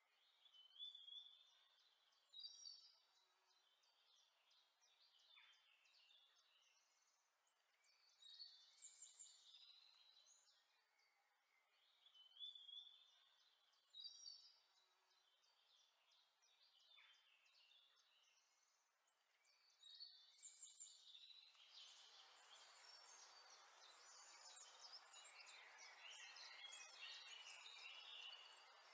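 Faint bird chirps: short high calls in small clusters every few seconds, joined near the end by a steady hiss and denser chirping.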